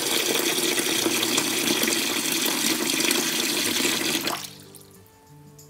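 Tap water running in a steady stream into a glass bowl of black glutinous rice, filling it to rinse the rice. The water sound cuts off suddenly about four seconds in, leaving faint acoustic guitar music.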